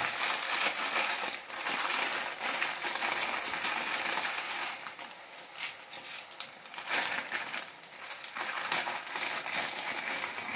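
Plastic food packet crinkling as the dry contents are crushed by hand and shaken out into the pan: an irregular run of crackles and rustles.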